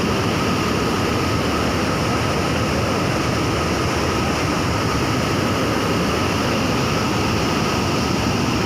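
Waterfall pouring: a loud, steady, unbroken rush of water noise.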